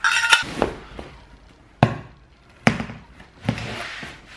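A large cardboard box being handled: a clatter at the start, then three sharp knocks a little under a second apart, the last followed by cardboard scraping.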